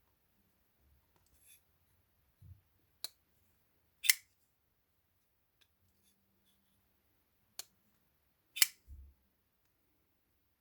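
Front-flipper folding knife being snapped open and shut: four sharp metallic clicks in two pairs, a light click followed about a second later by a much louder snap each time.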